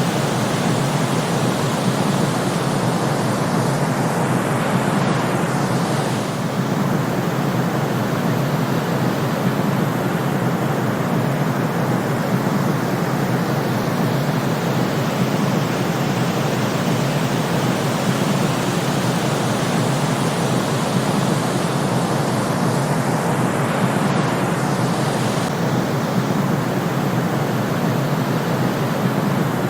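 Steady white noise, an even hiss without pitch or rhythm, playing as the background of a countdown timer.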